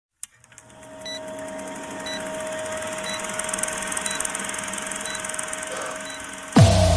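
Electronic intro sound: a steady hum that grows louder, with a short high beep about once a second, then a sudden deep hit with a falling sweep near the end that opens into music.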